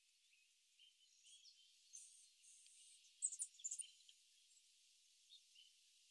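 Faint, high-pitched bird chirps and twitters over a light hiss, with a quick cluster of sharper, louder chirps about three seconds in.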